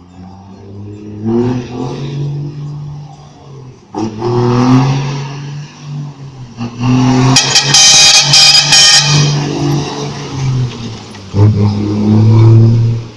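Diesel truck engine revving and running on its engine brake in repeated surges, the pitch climbing and dropping. A louder, harsh rasping stretch comes about halfway through.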